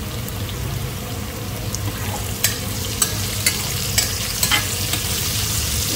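Green bell peppers and sliced garlic sizzling in hot oil in an enamelled pan. A utensil scrapes and knocks against the pan about five times from the middle on, roughly two a second, as the vegetables are pushed aside.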